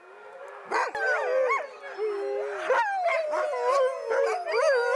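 Many sled dogs howling and yelping together in a dense, overlapping chorus, starting under a second in: the excited din of teams eager to run.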